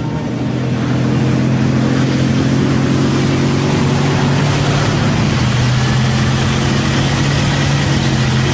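Heavy truck engine running steadily under load, a low, even drone.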